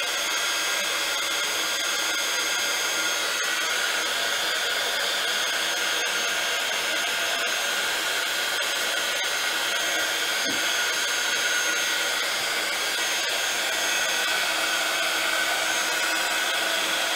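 Embossing heat gun running steadily, its fan blowing hot air with a high whirring tone, melting embossing powder on a stamped card.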